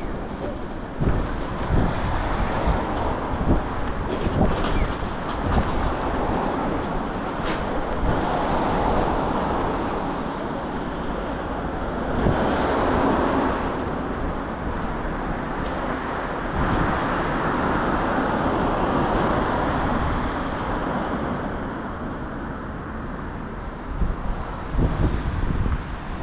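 City street traffic with the low rumble of a passing streetcar, swelling and fading several times as vehicles go by.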